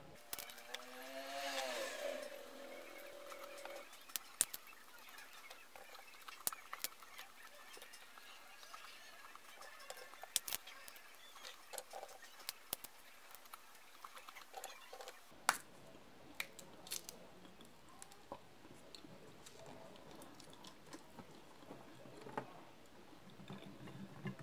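Boiled peanut shells being cracked open by hand and the peanuts chewed: scattered sharp clicks and crackles at an uneven pace, fairly quiet.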